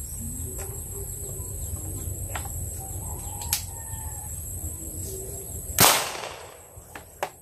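A homemade alcohol-fuelled marble gun, built like a shotgun, fires a single shot about six seconds in: one sharp bang that fades over about half a second.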